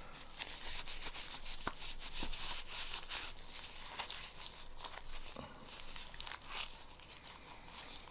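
Cloth rag rubbing over a Glock pistol's slide and frame, with a steady scratchy hiss and small clicks and knocks as the gun is handled while it is wiped clean of oil and fingerprint smudges.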